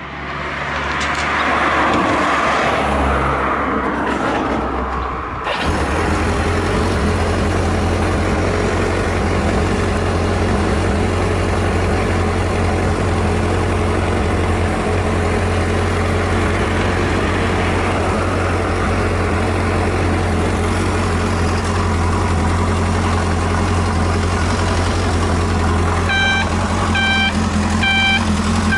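1978 Kawasaki Z650's air-cooled inline four-cylinder engine starting and then idling steadily; the engine settles into an even idle about five and a half seconds in. Near the end a repeating electronic beep sounds over the idle.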